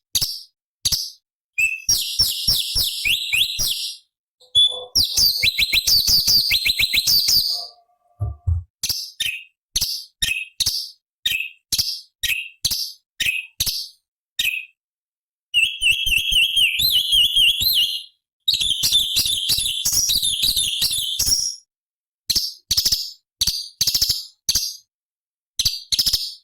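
Orange-bellied leafbird (cucak cungkok) singing: a run of short, sharp high chirps about two a second, broken several times by longer, fast warbling phrases.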